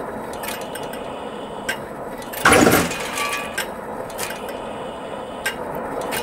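Steady mechanical running noise of a wood-chip gasifier, with scattered light clicks and one louder clatter lasting about half a second about two and a half seconds in, as the compactor's rod and cone work in the wood-chip bed of the feed tube.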